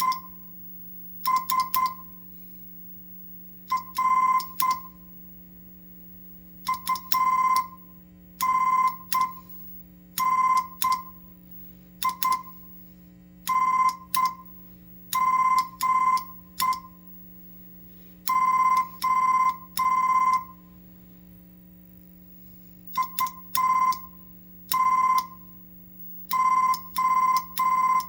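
Morse code sent slowly by hand, heard as a high electronic beep keyed into short dots and longer dashes, in groups with pauses between letters and words. A faint steady hum sits underneath.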